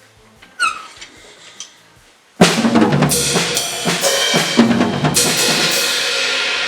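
A light ringing tap about half a second in, then from about two and a half seconds a drum kit is played hard: a quick run of drum hits with crashes on the newly mounted Sabian B8X 18-inch ballistic crash, its wash ringing on to the end.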